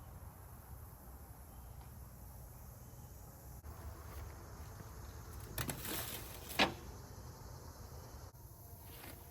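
Outdoor ambience with a steady low rumble, broken about five and a half seconds in by a brief crackle and then a single sharp click or snap.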